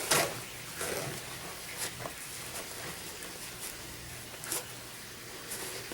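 Handling noises: a few sharp clicks and knocks over faint rustling, the loudest right at the start, as the pants and a freshly hammered-on metal jean button are handled.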